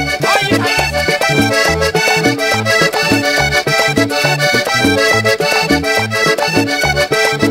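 Vallenato conjunto playing an instrumental passage: an accordion melody over a pulsing bass line and steady percussion.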